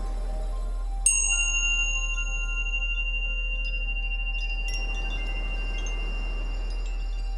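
Chimes struck once about a second in, ringing on at one clear high pitch for several seconds, with a few fainter tinkles later. Under them run a steady very low hum, the track's 40 Hz tone, and a soft wash of noise.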